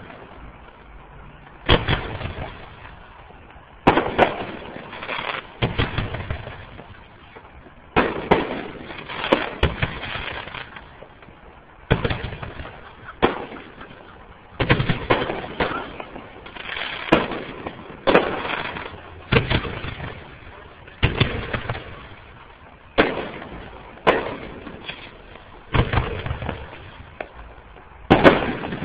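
Aerial fireworks shells bursting one after another during a fireworks display, a sharp bang every one to two seconds, each fading out over about a second, some coming in quick pairs.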